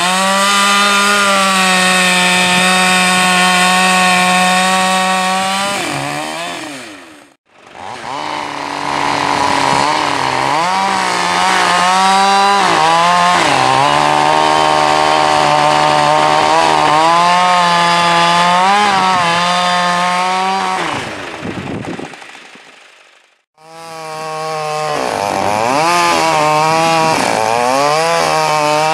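Two-stroke chainsaw with a 28-inch bar running at full throttle while bucking logs, its engine pitch dipping as the chain loads up in the cut and rising again as it frees. The sound breaks off briefly twice, about 7 and 23 seconds in.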